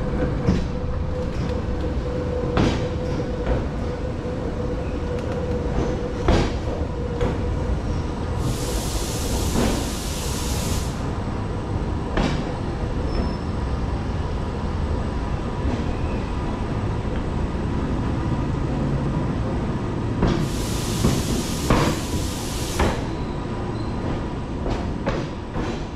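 Electric rack-railway train running: a steady low rumble with scattered sharp knocks from the running gear and track, and a faint steady whine for the first several seconds. Two hisses of about two seconds each come roughly nine and twenty-one seconds in.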